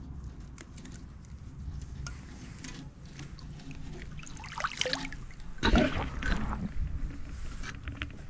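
Water splashing at the side of a boat as a hooked fish and a wire fish basket are handled at the surface, with light metallic rattling from the basket. The loudest splash comes a little past halfway.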